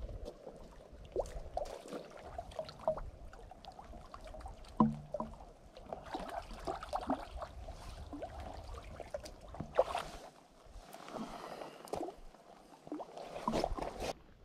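Lake water splashing and trickling as lake trout fillets are rinsed at the rocky shoreline, with scattered clicks and knocks on the rock, the sharpest about five and ten seconds in.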